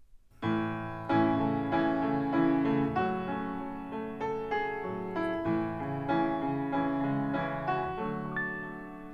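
Solo piano music from a recording played back over Harbeth SHL5+ hi-fi loudspeakers and picked up by a room microphone, a run of struck, decaying notes starting about half a second in.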